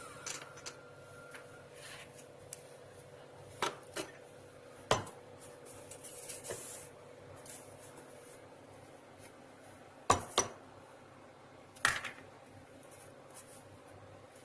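Kitchen containers and utensils being handled after grinding: about half a dozen scattered sharp clicks and knocks, with quieter stretches between them.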